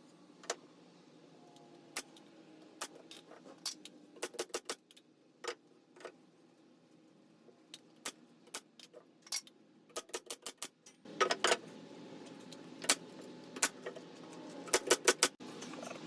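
Brad nailer firing 1¼-inch brad nails into plywood French cleats: a series of sharp single clicks, some spaced out and some in quick runs, including four in a row near the end. The background hiss gets louder about two-thirds of the way through.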